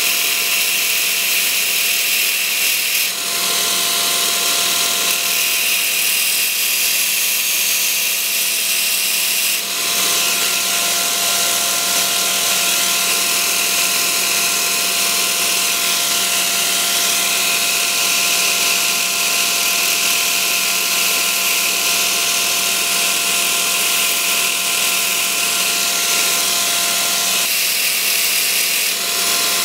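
Electric belt grinder running with a steel knife blade pressed into the abrasive belt at the contact wheel. A steady motor whine carries the hiss of the belt cutting the bevel, with a couple of brief dips where the pressure eases.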